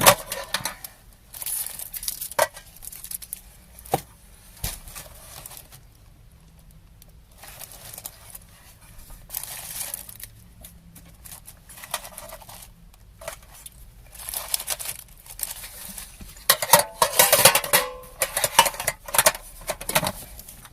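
Cellophane candy wrappers crinkling as the sweets are handled and unwrapped, in irregular bursts with a few sharp clicks. The crinkling is busiest and loudest near the end.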